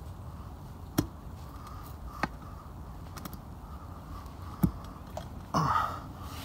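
Steel pry bar knocking against a concrete septic tank lid that is stuck fast: three sharp knocks, then a short, noisier burst near the end.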